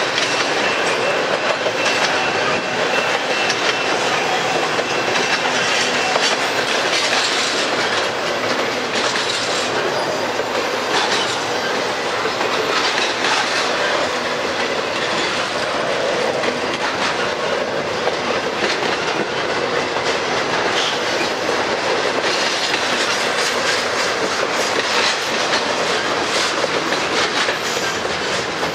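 Double-stack intermodal freight train's well cars rolling past slowly: a steady rumble of steel wheels on rail, with the clickety-clack of wheels over the rail joints.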